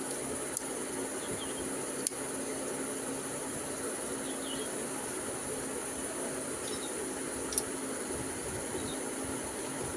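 Steady hiss with a high-pitched whine and a low hum, broken by three sharp clicks.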